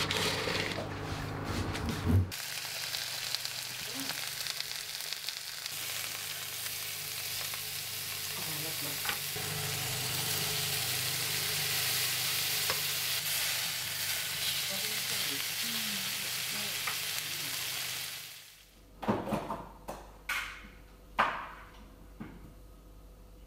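Monkfish steaks sizzling in butter in a hot non-stick frying pan, a steady frying hiss. Before it, a knife cuts through a chilled chorizo-butter crust log, ending in a sharp knock. Near the end the sizzling stops and a few sharp knocks follow.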